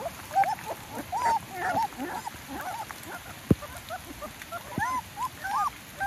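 Young puppies whimpering and crying: a steady run of short, high cries that rise and fall, several a second. A sharp click sounds about three and a half seconds in.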